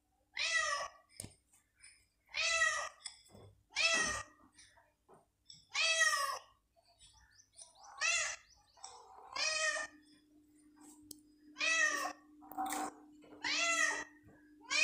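Young cat meowing over and over: about nine loud meows, each around half a second long and rising then falling in pitch, spaced a second or two apart.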